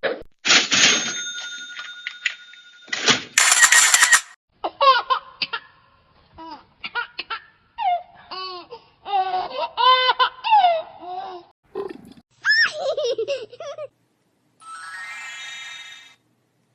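A string of short funny sound effects cut back to back. A noisy blast with steady ringing tones comes first, then a brief high hiss, then a long run of short laugh-like pitched cries that bend up and down, and a steady buzzing tone near the end.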